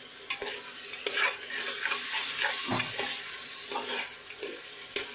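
A metal spatula stirring and scraping chana dal and potatoes frying in oil in an aluminium pressure cooker, with a sizzle and irregular scrapes and knocks against the pot.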